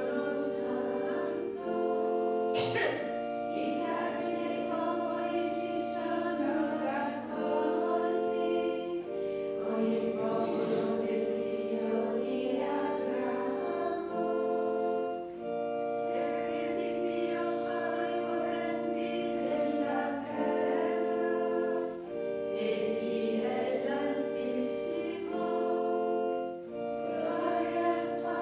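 A small group of women's voices singing a slow hymn together, in long held notes that change every second or two.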